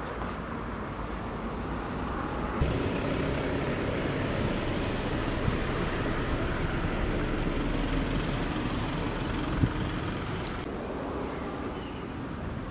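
Outdoor ambience of distant road traffic, a steady rushing hiss that grows louder and brighter about two and a half seconds in and drops back near the end, with a few small knocks.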